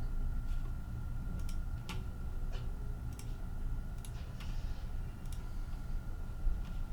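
Scattered light clicks and ticks, about one or two a second at uneven spacing, over a steady low hum and a faint steady tone.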